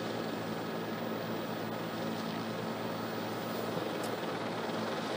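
Steady drone of a news helicopter's engine and rotors picked up inside its cabin: a low, even hum under a constant rushing noise, unchanged throughout.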